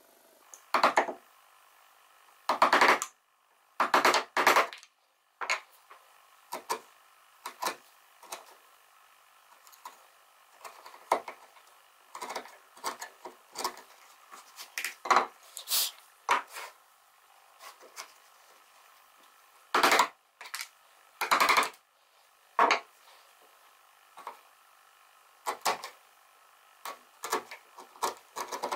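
Irregular wooden knocks and clicks, a few loud ones among many lighter taps, as pine joint pieces are handled and fitted together and a hand chisel cuts and pries out small pieces of waste wood.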